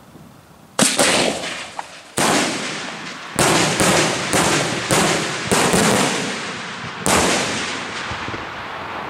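Daytime aerial firework shells bursting overhead: about ten loud bangs in an uneven string, starting about a second in, each trailing off in an echo.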